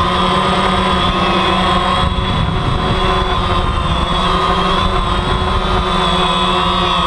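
DJI Phantom quadcopter's electric motors and propellers whining steadily, heard close up from the GoPro mounted on it. The pitch wavers slightly as the motors adjust, over a low rumbling noise.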